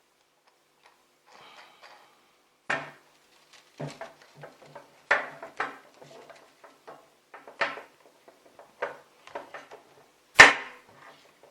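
Objects being handled and set down: a series of sharp knocks and light clatters, irregular in spacing, with one much louder knock near the end.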